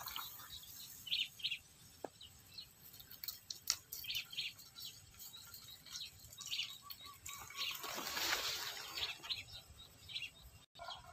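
Small birds chirping in short, high calls repeated throughout, with a couple of faint clicks and a brief swell of rustling noise about eight seconds in.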